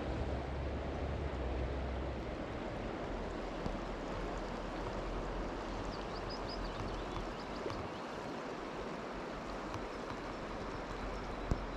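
Steady rush of a river in spate flowing past, with a few faint high chirps about six seconds in.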